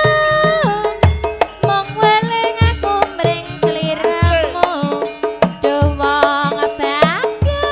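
A female Javanese sinden sings long, sliding, ornamented notes over a gamelan-style campursari ensemble. Deep hand-drum strokes keep the beat about once or twice a second.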